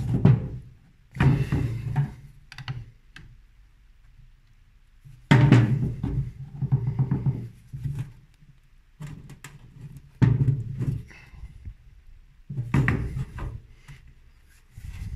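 Dubstep music with drums and heavy bass, coming in loud phrases with short quieter gaps between them.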